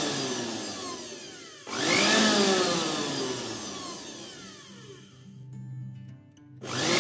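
Juicer blender motor base running with no jug on, in short button pulses: each press spins it up sharply and it coasts down with a falling whine. It is winding down at first, is pulsed again about two seconds in and once more near the end. The motor spins freely, its jammed bearing freed with WD-40.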